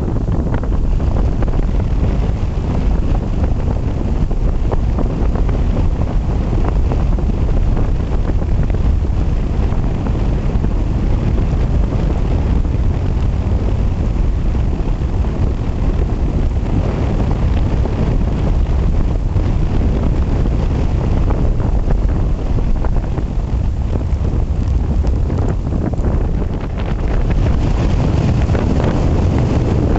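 Gale-force mountain wind buffeting the camera microphone: a continuous low rumbling roar of wind noise that surges with the gusts.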